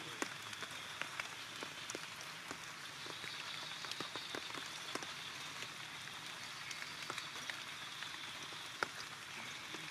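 Rain falling: a steady hiss with scattered sharp drops striking close by, and a steady high tone running behind it.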